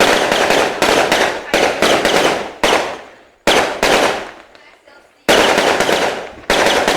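Fireworks going off in quick succession: each sharp bang is followed by crackling that fades over about a second, about six in all, with a short lull around four to five seconds in.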